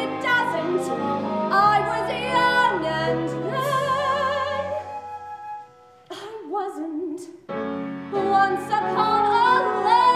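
A woman singing a musical-theatre song in full voice over instrumental accompaniment. About four seconds in she holds a long note with vibrato that fades away. After a brief near-pause a short low vocal line follows, and the accompaniment comes back in.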